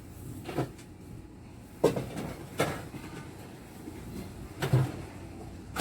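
Hard kitchen objects being handled and set down on a counter: four separate knocks and clunks spread over a few seconds.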